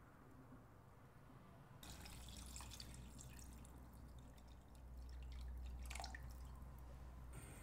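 Water poured in a thin stream into a clay pot of chicken pieces, splashing and trickling as it fills. It starts about two seconds in and is quiet.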